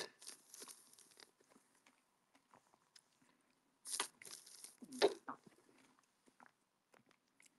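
Faint, sparse clicks and short hissy noises close to the microphone, the loudest two about four and five seconds in.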